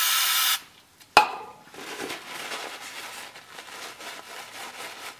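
A short steady hiss of aerosol brake cleaner being sprayed onto a cover bolt, cutting off about half a second in, then a sharp click, then paper towel rustling and rubbing as the bolt is wiped clean.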